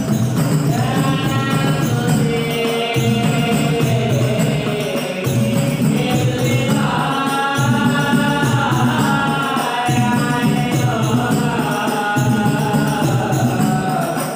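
A hadrah ensemble: male voices singing a chanted melody into microphones over a group of rebana frame drums beating a steady rhythm.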